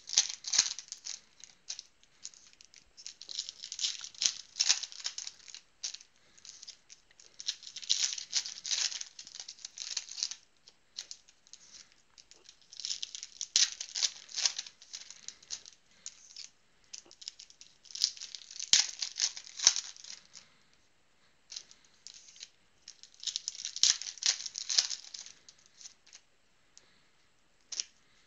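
2012 Panini Prizm trading-card packs and cards being handled: about six bursts of crinkling and rustling, one every four to five seconds, with quiet gaps between.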